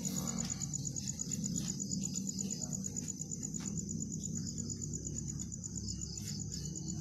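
Crickets chirping in a steady, rapid high-pitched pulse, over a low, even background hum.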